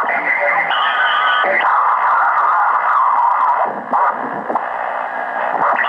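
Tecsun PL-680 shortwave receiver's speaker in lower-sideband mode, giving band noise and short steady whistles while being tuned slowly across the 40-metre amateur band.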